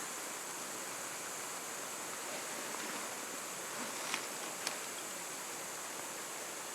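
Waipakihi River flowing: a steady rush of running water, with two short sharp clicks a little past the middle.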